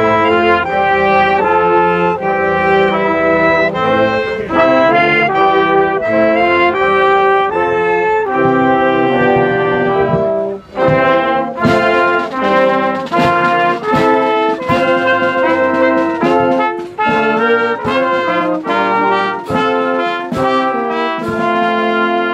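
Brass band playing a tune. It breaks off briefly about ten seconds in, then carries on with shorter, clipped notes.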